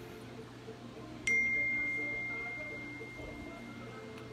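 A phone's notification chime: one clear, pure ding about a second in that rings on and fades slowly.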